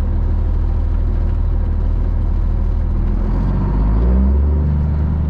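Semi tractor's Cummins ISM diesel engine running at idle, its pitch rising and getting a little louder about three and a half seconds in as the engine speeds up.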